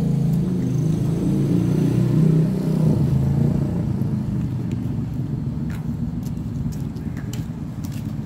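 Motor vehicle engine rumble from street traffic, strongest in the first three seconds and then settling into a steadier, lower rumble, with a few faint clicks in the second half.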